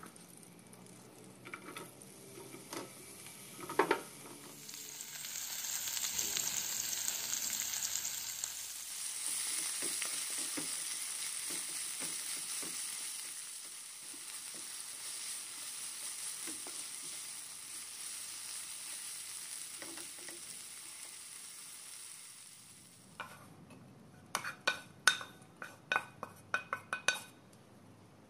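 Sliced onion and red and green bell peppers sizzling in hot oil in a frying pan, starting about five seconds in and frying on steadily while being stirred with a wooden spatula. Near the end, a quick run of sharp clicks.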